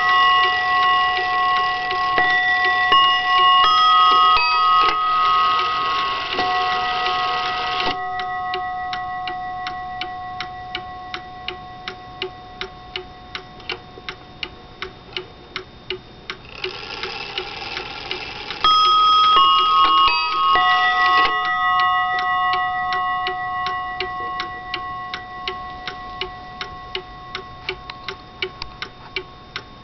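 Seth Thomas Sonora chime mantel clock, made around 1900, chiming its quarter-hour on slightly out-of-tune bells: a series of ringing notes at changing pitches that fade into the movement's steady ticking. A little over halfway through a second series of chime notes starts suddenly, then dies away into the ticking again.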